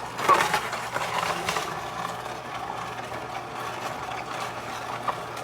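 Electric juicer motor running with a steady hum while fresh produce crunches through it, the crunching loudest in the first second and a half before it settles into an even whir.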